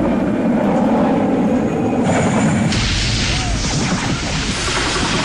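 Helicopter running close by, then about two and a half seconds in a sudden loud, harsh crashing noise with a deep rumble as it goes down and its rotor blades break up.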